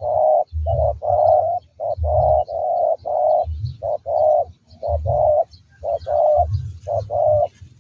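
Spotted doves cooing: a steady run of low, rounded coos in groups of two or three, a new phrase about every second.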